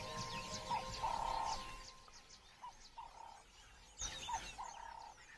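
Bush ambience of birds chirping, with a two-part call (a short rising note, then a held note) repeating every second or two. Background music fades out in the first second and a half, and a brief louder sound comes about four seconds in.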